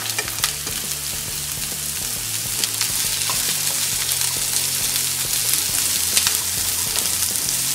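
Diced onion, capsicum, carrot and sweetcorn sizzling in hot oil in a pan over a high flame, stirred with a wooden spatula that clicks against the pan a few times.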